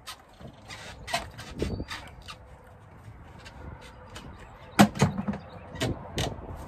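Scattered metallic clicks and knocks of channel-lock pliers working a hose clamp loose on a radiator hose, with one sharper knock about five seconds in.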